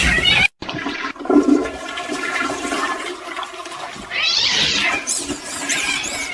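A cat meows once, about four seconds in, over a steady rushing, water-like noise.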